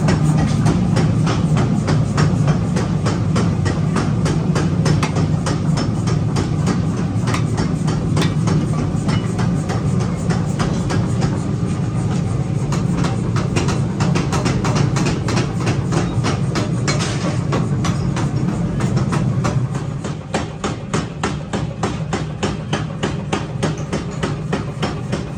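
Mechanical power hammer pounding a red-hot steel pickaxe head in a fast, even run of strikes over a steady motor hum. About twenty seconds in the hum drops away and lighter, sparser knocks continue.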